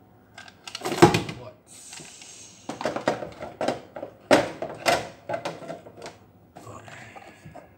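Total 20 V plastic battery chargers handled and set down on a table: a run of hard plastic clacks and knocks, loudest about a second in and again around four to five seconds, with a brief scraping rustle about two seconds in.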